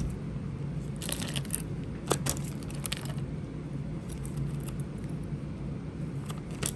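Small metal costume-jewelry pieces clinking and jangling as they are handled: scattered light clicks, the sharpest about two seconds in, over a steady low hum.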